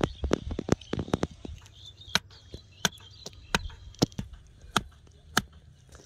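A bamboo club knocking a rope-wrapped wooden stake into the ground: a quick run of blows in the first second and a half, then single blows about every two-thirds of a second.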